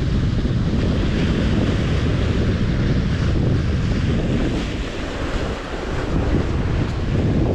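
Wind buffeting the microphone, easing briefly about five seconds in, over sea waves breaking and washing against the boulders of a rock breakwater.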